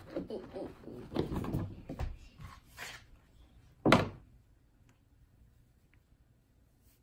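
Rustling and light knocks as a plush hand puppet is handled against a plastic toy vanity, then one sharp thump just before four seconds in as the puppet is dropped onto the counter.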